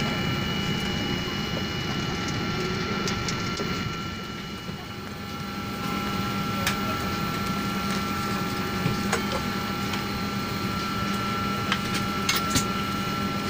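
Steady hum of a parked Boeing 737-800's cabin, with a few held tones over a low rush. In the second half there are several sharp clicks and knocks, from passengers handling bags and overhead bins as they board.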